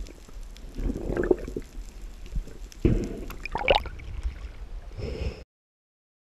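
Sea water sloshing and gurgling at the surface of a choppy sea, with a low rumble and two louder surges, about one and three seconds in. It cuts off suddenly near the end.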